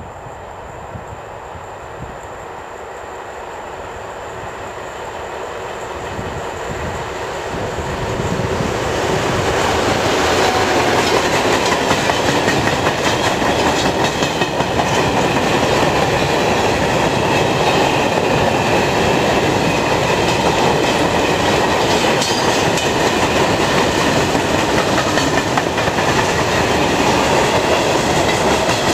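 Freight train hauled by two Dv12 diesel locomotives approaching, growing louder over the first ten seconds or so as the locomotives come past, then its freight wagons rolling by at close range with a steady clatter of wheels on the rails.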